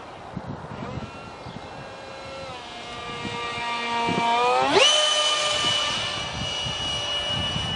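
Detrum 70 mm electric ducted fan of a foam RC flying-wing jet whining in flight. Its pitch climbs slowly, then jumps sharply about four and a half seconds in to a high, steady, louder whine as the fan is throttled up.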